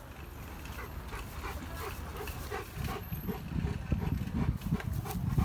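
Dogo Argentino panting close by in quick, rhythmic breaths, growing louder toward the end.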